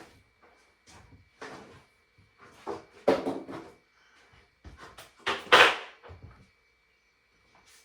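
Scattered knocks, clunks and scrapes of hands and tools working on a plumbing fitting in a cramped space, the two loudest about three and five and a half seconds in.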